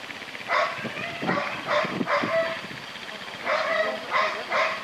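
A dog barking in short, high yelps, about seven in all, in two runs with a short pause between them: excited barking.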